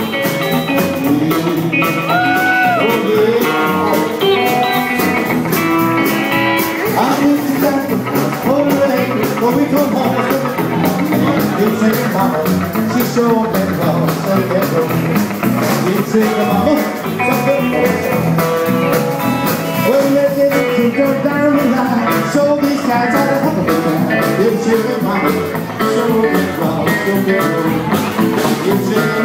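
Live rockabilly band playing: electric guitar, bass and drums, with a male singer at the microphone.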